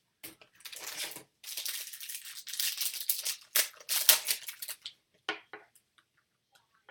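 Crinkling and rustling of a foil trading-card pack being torn open and its cards handled. The rustle is dense for about the first five seconds, then thins to a few light ticks.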